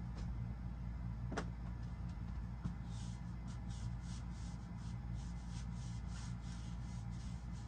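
A run of short scratchy rustles, about three a second, lasting several seconds, over a steady low hum, with a sharp click about a second and a half in.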